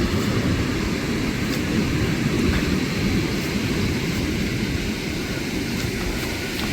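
Big ocean waves breaking on a sandy beach: a steady, dense rush of surf with a heavy low rumble.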